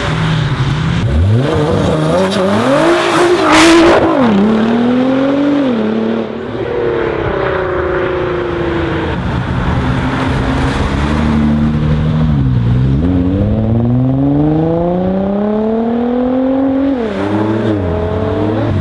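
Nissan GT-R R35's twin-turbo 3.8-litre V6 accelerating hard, its revs climbing and dropping through gear changes, with a sharp loud bang a few seconds in. Near the end the revs make one long climb over several seconds and then fall away at a shift.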